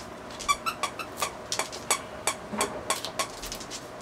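Dachshund puppy whining in short, high-pitched squeaks, about three a second in an uneven string, eager for the toy held above it.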